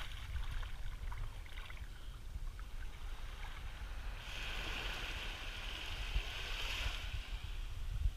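Small waves washing up on a sandy shore, the hiss of the surf swelling for a few seconds about halfway through, over a steady low rumble of wind on the microphone.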